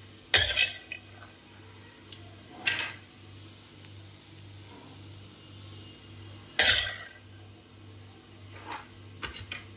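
Steel ladle scraping roasted peanuts out of a pan and tipping them onto a plate: a few separate metal scrapes and clinks, the loudest about half a second in and about two-thirds through, with smaller ones near the end. A faint steady low hum runs underneath.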